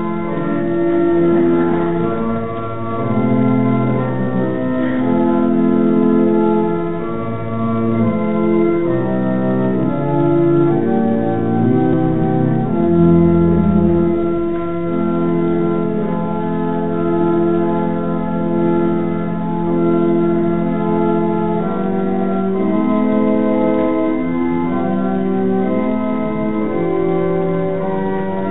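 Organ playing slow, sustained chords over held bass notes, the harmony changing every second or two.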